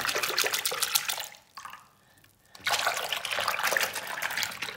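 Water splashing and sloshing in a bathroom sink basin as a toy is swished around in it. It comes in two spells, with a short quiet pause about a second and a half in.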